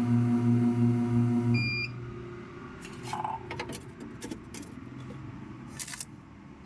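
Liquid-detergent vending machine's dispensing pump running with a steady pulsing hum, which stops about a second and a half in with a short high beep. Scattered clicks and knocks follow, the loudest near the end.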